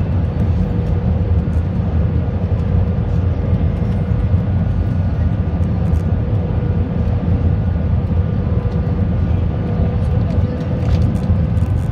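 Cabin noise inside an Airbus A321 on final approach with flaps extended, heard over the wing: a steady low rumble of engines and airflow with a steady mid-pitched hum above it.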